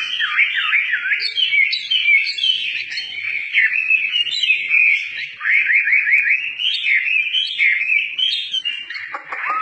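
Chinese hwamei (melodious laughingthrush) singing a loud, continuous, varied song of rich whistled phrases and quick sweeping slurs, with a fast run of repeated notes about halfway through.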